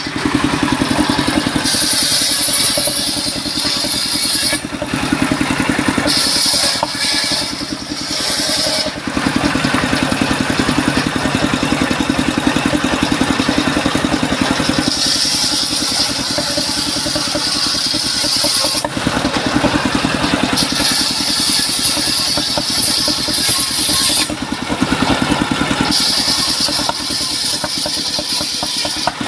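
Engine-driven sawmill machinery running: a steady engine drone with a harsh high-pitched noise that comes and goes in stretches of a few seconds.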